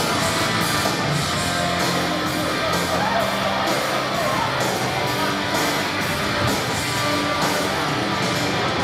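Rock music with strummed electric guitar and a steady beat.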